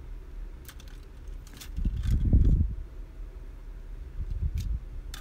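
Plastic pens being handled and gathered up, with scattered light clicks and rattles. A low bump about two seconds in, as a hand brushes the camera or the tabletop, is the loudest part.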